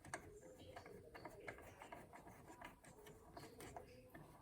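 Faint, scattered small clicks and ticks of spring-loaded thumb screws being turned by hand onto a CPU cooler's mounting posts.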